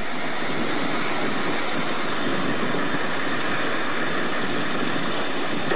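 Steady rushing noise of wind and sea surf, the original stereo sound of a seaside home video shot on a Panasonic NV-S7 camcorder, heard through computer speakers and re-recorded by a second camcorder.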